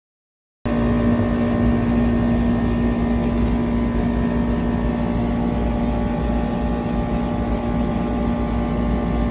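A steady motor drone with a low rumble and several fixed hum tones, cutting in suddenly just under a second in after digital silence.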